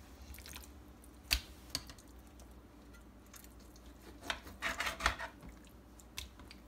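Raw chicken breasts being handled and laid down on a glass dish: a sharp tap about a second in, then a cluster of short wet squishing and slapping sounds past the middle.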